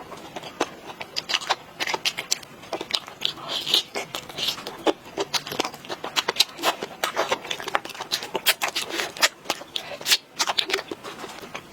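Close-miked eating: a person chewing and biting food, with dense irregular mouth clicks, crunches and smacks.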